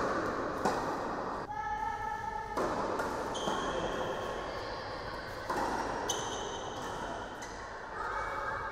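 Tennis rally on an indoor court: sharp racket strikes and ball bounces a second or so apart, with shoe squeaks on the court surface in between, in a reverberant hall.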